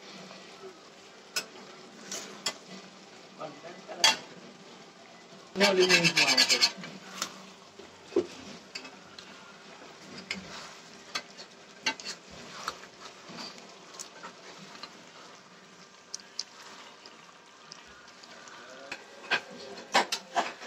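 A metal spatula stirring and scraping chicken pieces in thick masala around a pan, with scattered clicks of metal on the pan over a low sizzle. A loud, rapid flurry of scraping comes about six seconds in.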